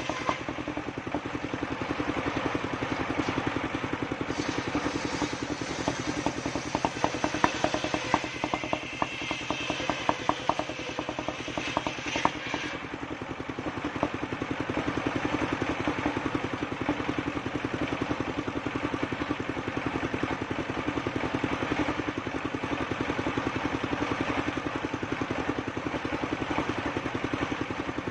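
Engine of a homemade circular-saw sawmill running steadily. For roughly the first twelve seconds a harsher, higher-pitched cutting sound with clatter rides over it, the blade working through wood, then stops suddenly while the engine keeps running.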